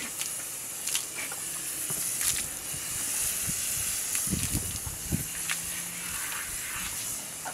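Water spraying from a garden hose onto a horse's coat, a steady hiss, with a few soft low thuds around the middle.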